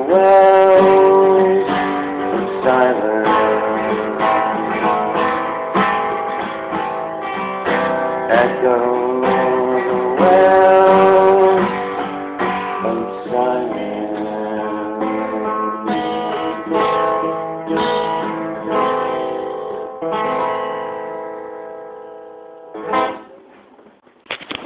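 Acoustic guitar strumming and singing at the close of a song, with long held notes. The guitar rings out and fades away near the end, followed by a short knock.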